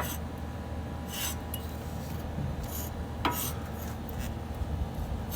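A few short scrapes and light metallic clicks from hand work on a car's brake caliper and its bolts, over a low steady hum.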